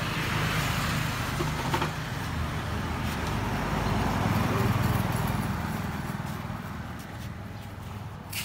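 Road traffic: a passing motor vehicle's noise swells to a peak about halfway through and then fades away, over a steady low hum. A short sharp click comes near the end.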